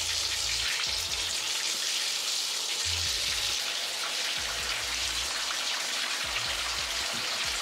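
Bathtub faucet running: water pours in a steady stream onto the bottom of a nearly empty tub, making a continuous splashing hiss.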